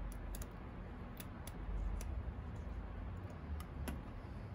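Scattered small clicks and light taps as a Delco Remy voltage regulator and its wire terminals are handled and pressed into place, over a low steady rumble.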